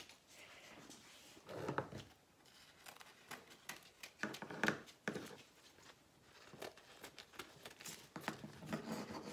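Faint rustling and crinkling of baking paper being trimmed with scissors, with scattered small clicks and knocks.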